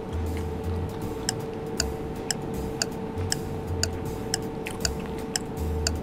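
Clock-like ticking, about two ticks a second, over a steady hum, with irregular low thumps of chewing underneath.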